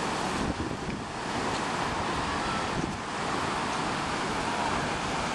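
Ocean surf breaking on the beach, a steady wash of noise, with wind buffeting the microphone.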